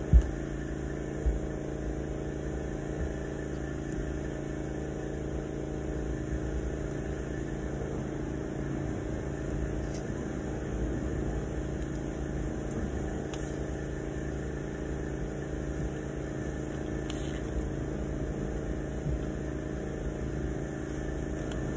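A steady machine hum with several held tones over a low rumble. A sharp knock comes right at the start and another about a second later.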